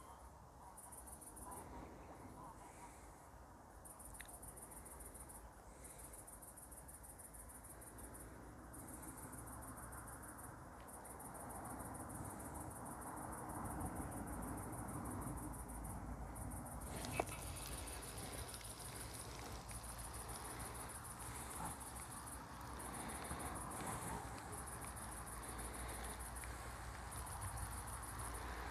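Insects chirping in long high-pitched trains, broken by short gaps every second or two, over a soft low rumble. One sharp click about 17 seconds in.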